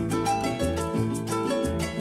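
Instrumental music led by a plucked harp, with quick runs of notes over a moving bass line.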